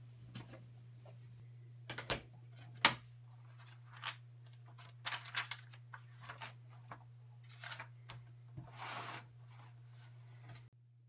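Paper rustling and pages flipping as a spiral-bound sketchbook is handled and leafed through, with a sharp knock a little under three seconds in. A steady low hum sits underneath and stops abruptly near the end.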